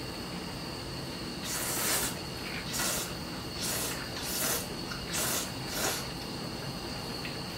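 Instant ramen noodles being slurped with chopsticks in a run of about six quick slurps, each a short hissing rush, starting about a second and a half in.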